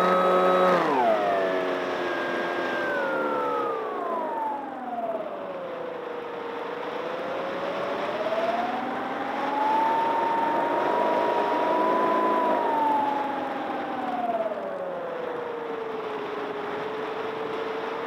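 Electric motor and propeller of a FliteTest Fowl Flyer RC plane heard from on board: a whine that drops sharply about a second in as the throttle comes back, sinks lower, rises again around the middle and then falls back.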